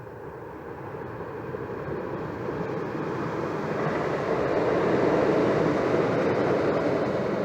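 A passing vehicle's rumbling rush, swelling steadily for about five seconds and then holding at its loudest.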